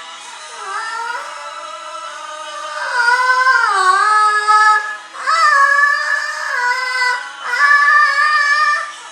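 A young child singing held, wordless vowel notes in a high voice, sliding between pitches. Soft at first, louder from about three seconds in, in several phrases.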